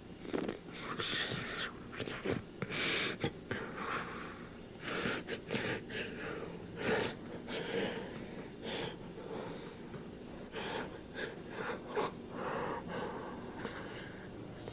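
Breathy, hissing vocal sounds in many short, irregular bursts.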